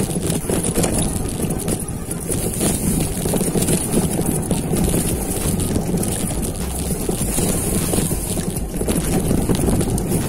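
Mountain bike riding fast down a rough dirt trail: steady tyre noise with a constant rattle of small knocks from the bike over bumps, and wind on the microphone.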